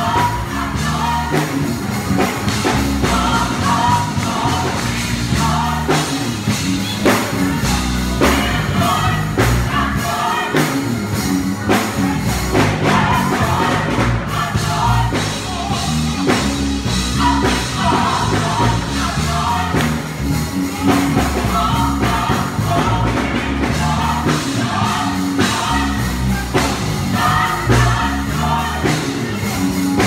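Gospel choir of sopranos, altos and tenors singing in parts over music with a steady beat.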